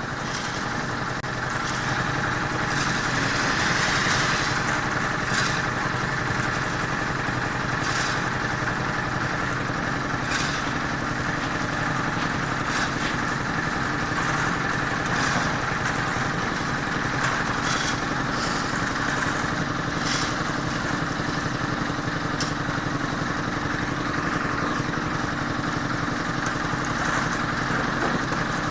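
An engine running steadily, with irregular sharp clanks or knocks every second or two over it.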